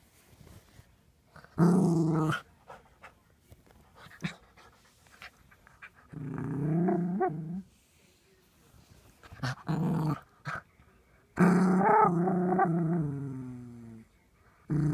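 Miniature poodle puppy play-growling in four bouts, the longest about two and a half seconds starting near the end and trailing off, with faint scuffs and clicks between.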